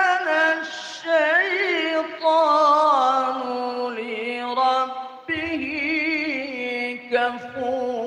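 A man reciting the Qur'an in the melodic, ornamented tilawah style through a microphone, drawing out long wavering notes in several sustained phrases with brief breaks between them.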